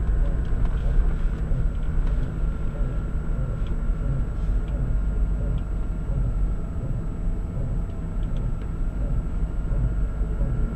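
Car driving at low speed over a steady low road rumble, with a repeating extraneous noise from the drive shaft that comes faster as speed rises. The owner takes it for a fault in the drive, felt as a vibration at low speed.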